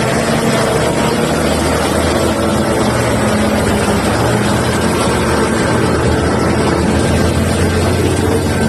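Liebherr R9800 mining excavator's diesel engine running steadily, a loud, even low drone with hiss on top.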